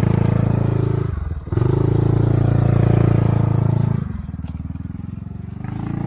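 Maxi-scooter engine revving hard as it climbs a slippery, muddy dirt track. The revs drop briefly about a second in, pick up again, then ease off after about four seconds.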